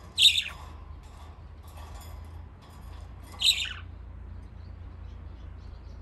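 Pet budgerigars calling: two loud, short chirps, one right at the start and one about three and a half seconds in, each sliding slightly down in pitch, with fainter chirps between.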